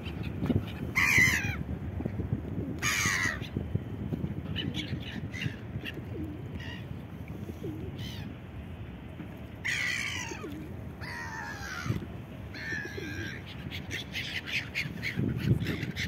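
Gulls giving harsh, falling calls, a dozen or so scattered through, the loudest about a second in and around ten seconds in, over a steady low background rumble.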